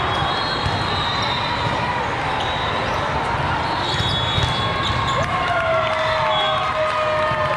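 Busy indoor volleyball tournament hall: a constant din of many voices with the smack and bounce of volleyballs across the courts. Referee whistles blow briefly at the start and again about four seconds in, and raised voices calling out come in near the end.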